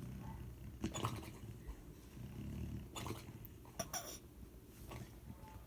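Puppy snoring in its sleep, a low rumbling breath, with a few short sharp snuffling sounds about a second in, near three and four seconds, and around five seconds.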